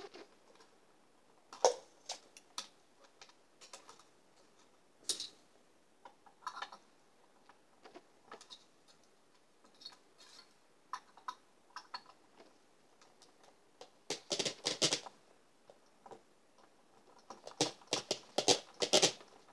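Scattered light clicks and scrapes of a steel guitar string and small hand tools being handled at an electric guitar's headstock, with a quick clattering run about 14 seconds in and another near the end.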